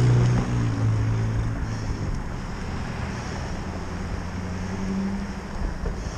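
Wind buffeting the microphone of a bicycle-mounted action camera while riding, over road noise. A low vehicle engine hum fades out over the first two seconds.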